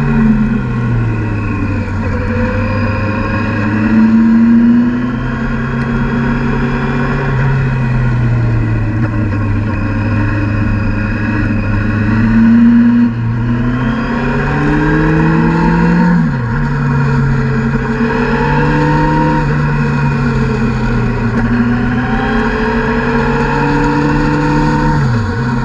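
Motorcycle engine running under way, its pitch rising and falling steadily with the throttle through a series of bends, with two sudden drops in pitch, about two-thirds of the way in and near the end. Wind and road noise run under it.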